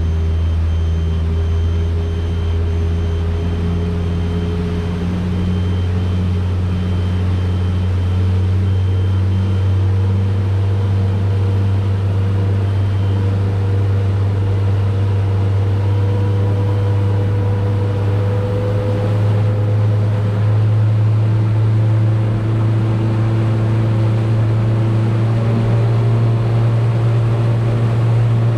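Fishing boat's engine running steadily under way, its pitch rising slowly as it speeds up.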